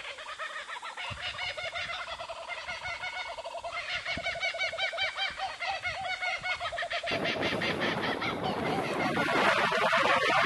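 A flock of birds chattering, many quick repeated calls overlapping. From about seven seconds in a rushing noise builds up and becomes the loudest sound near the end.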